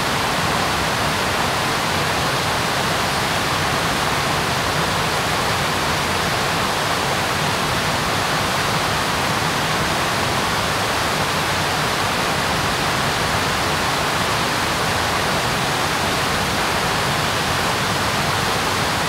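Steady rushing of the Dynjandisá river's cascades and rapids below Dynjandi waterfall in Iceland, an even, unbroken wash of falling and churning water.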